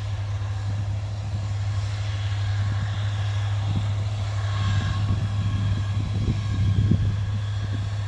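Yanmar AW82V combine harvester running in a rice field: a steady low engine hum with a faint machine whine, growing a little louder in the second half as the harvester comes closer.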